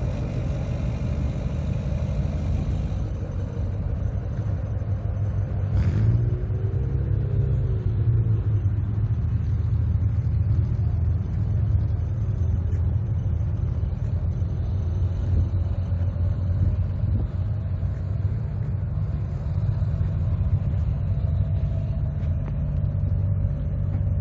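Motor vehicle running with a steady low rumble, and one sharp click about six seconds in.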